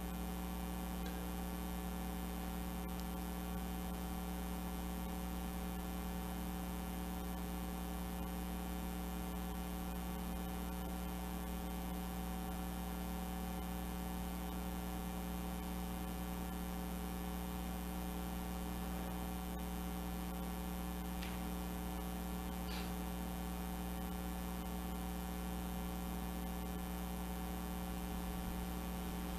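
Steady electrical mains hum: a low drone with a stack of steady higher tones above it, from the amplified sound system.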